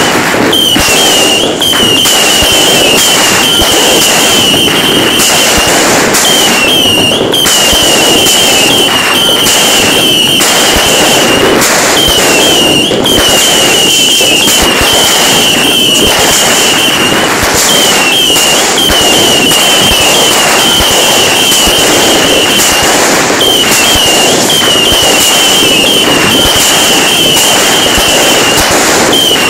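Fireworks and firecrackers crackling loudly and without a break, a dense run of sharp pops. Over the crackling, a wavering high-pitched tone comes in repeated runs of about five seconds each.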